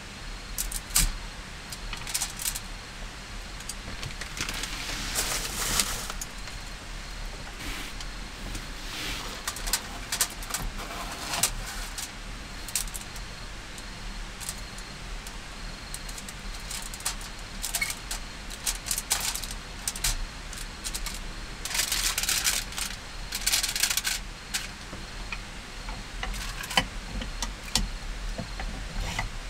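Crinkling of a plastic bag and paper wrapper, with light clicks and knocks of chopsticks and a metal hot sandwich pan, as raw sausages are picked out and laid into the pan. The rustling comes in irregular bursts, with a longer spell of it a little past two-thirds of the way through.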